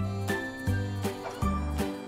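Background music for a children's cartoon: a light, bouncy tune with a steady beat and a plucked bass note about every two-thirds of a second.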